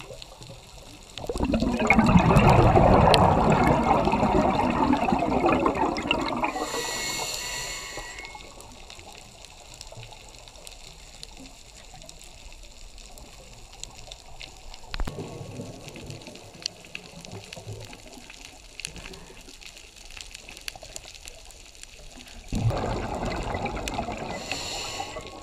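Scuba diver's breathing through a regulator underwater: a burst of exhaled bubbles for about five seconds, then a short hiss of inhalation. This repeats near the end. Faint scattered clicks sound in the long gap between.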